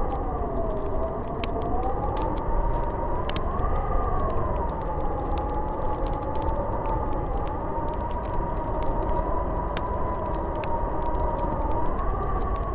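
Snowstorm wind howling: a steady low rush with a whistling tone that slowly rises and falls, and scattered faint clicks.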